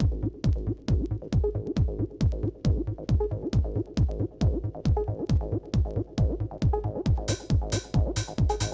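Electronic trance/techno dance music: a steady four-on-the-floor kick drum, about two beats a second, with pitch-dropping low hits under it. Near the end, a bright hissing hi-hat pattern comes in on top.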